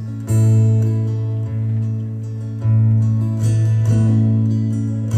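Solo acoustic guitar strummed live: a few chords struck and left to ring, with a strong low bass note under each.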